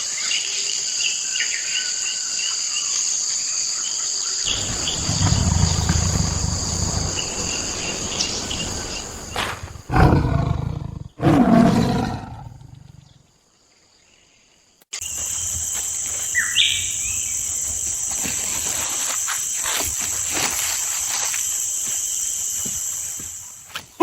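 Steady high buzzing of insects in a natural outdoor ambience, broken by two loud animal growls or roars about ten and eleven and a half seconds in, then a brief hush before the insect buzz returns with a short call.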